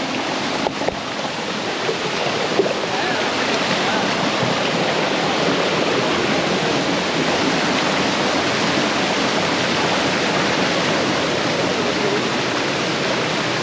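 Shallow rocky stream rushing and splashing over boulders in small cascades: a steady, even rush of water.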